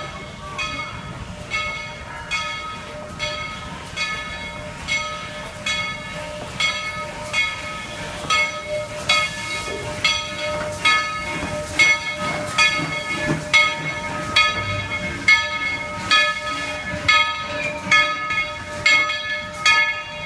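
Steam locomotive's bell ringing steadily, one stroke a little under every second, with a faint hiss of steam.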